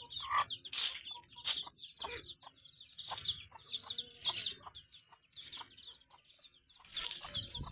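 Chickens clucking, with a steady stream of short, high peeping calls and a few louder bursts of noise.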